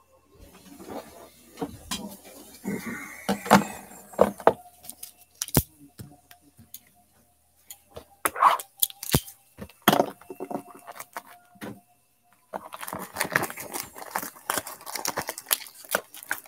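Knocks and clicks as a sealed trading-card box is handled and a knife slits its cellophane shrink-wrap. About twelve seconds in, a continuous crackle begins as the plastic wrap is torn off and crumpled.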